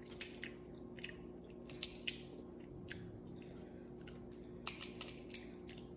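Close-up eating sounds: wet chewing and a scatter of small crackles and clicks as seafood shells are picked and peeled by hand, over a faint steady hum.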